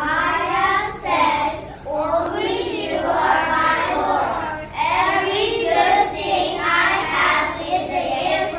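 Children's choir singing together, a run of sung phrases with short breaks between them.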